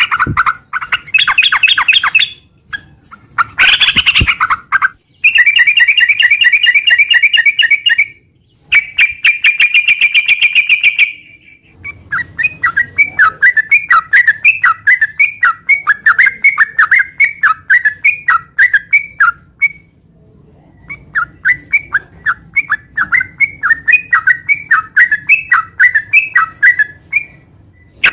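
Yellow-vented bulbul (trucukan) singing: loud bursts of rapid chattering notes, then long runs of quick repeated notes broken by short pauses.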